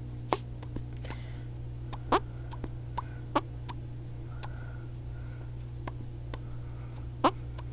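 A child's imitation fart noises: a scatter of short, sharp squeaky pops, several quickly dropping in pitch, with fainter ticks between them.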